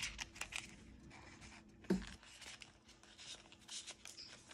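Rustling and crinkling of clear plastic binder pouches and cards being handled and slid about, with scattered light clicks and one knock about two seconds in.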